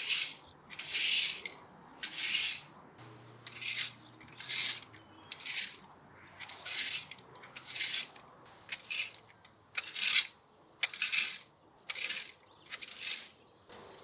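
Garden rake dragged through dry lawn grass in repeated scratchy strokes, about one a second, coming a little faster in the second half.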